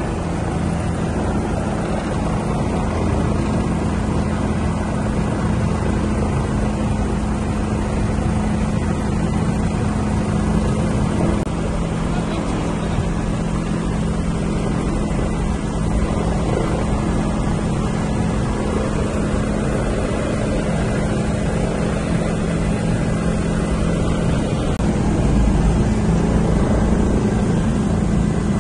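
Helicopter engine and rotor noise heard inside the cabin: a loud, steady drone that grows a little louder near the end.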